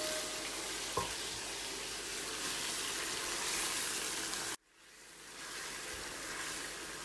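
Chicken cubes frying in oil in a pan, with a steady sizzle and a light knock about a second in. A little past halfway the sound cuts out abruptly, then the sizzle fades back in.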